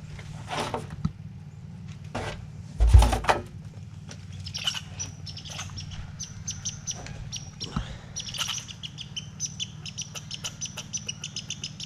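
A bird chirping: a long run of rapid, high chirps starts about four seconds in. Before that there is rustling and a single low thump about three seconds in, over a steady low hum.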